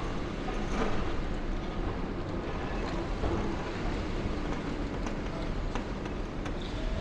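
High-reach demolition excavator working its crusher jaws on a concrete building: a steady low rumble of machinery, with crunching concrete and a few faint cracks and knocks.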